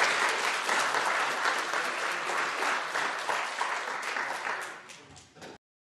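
Audience applauding, a dense patter of many hands clapping that tapers off near the end and then cuts off suddenly.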